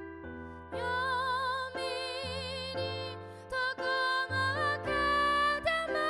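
Female gospel singer singing a slow, tender song with strong vibrato over held keyboard chords; her voice comes in under a second in.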